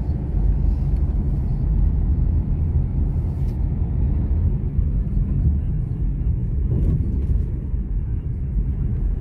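Steady low rumble of road and engine noise inside a car's cabin.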